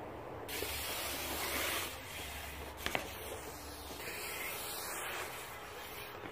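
A rushing hiss with a single sharp knock about three seconds in, from a concrete skatepark where BMX riders are riding.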